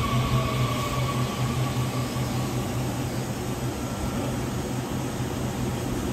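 Taiwan Railway EMU800-series electric multiple unit rolling slowly past a station platform: a steady low hum with running noise and a faint whine that falls slightly in pitch. The sound cuts off abruptly near the end.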